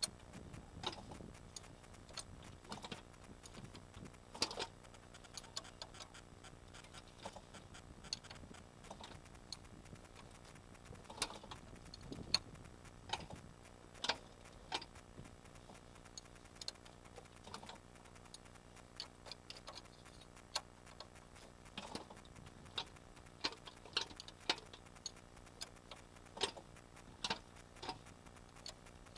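VAG AAM 1.8-litre four-cylinder petrol engine running, heard close up at the engine, with a sharp irregular ticking knock over a steady low hum; the knock is the engine fault being shown.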